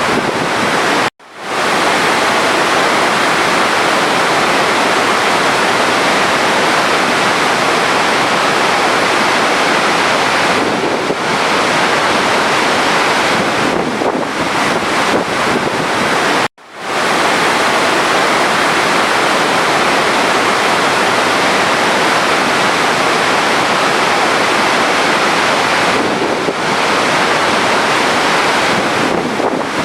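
Steady rushing of running water, a dense, even hiss. It cuts out for a moment about a second in and again about halfway through, then comes straight back.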